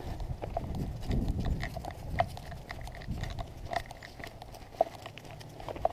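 Footsteps of a person and two leashed dogs walking over dry grass, an irregular patter with scattered light clinks.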